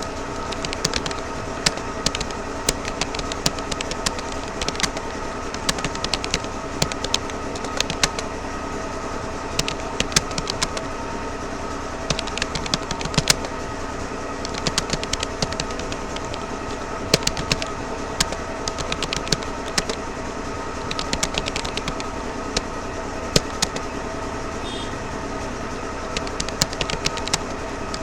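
Typing on a Rapoo computer keyboard: irregular keystroke clicks in quick runs with brief pauses, over a steady hum that holds several fixed tones.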